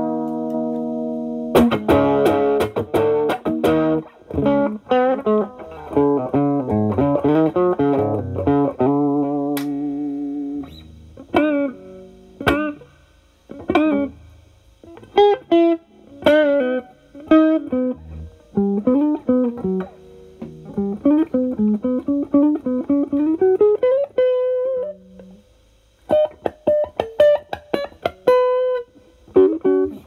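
Gibson SG electric guitar with humbuckers played through an Ibanez TS9DX Turbo Tube Screamer overdrive, drive at about 3 in HOT mode, into the clean channel of a Marshall Valvestate amp, giving a light overdrive. The pedal is switched on near the start. The playing moves from ringing chords to single-note licks with string bends and vibrato, pauses briefly about twenty-five seconds in, then returns to chords.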